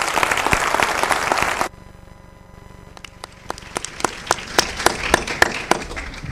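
Audience applauding. A dense round of clapping cuts off abruptly about a second and a half in, then a thinner round of separate hand claps picks up again.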